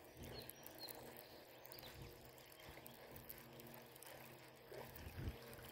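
Near silence: faint outdoor background with a steady low hum and a few short, faint high chirps in the first second.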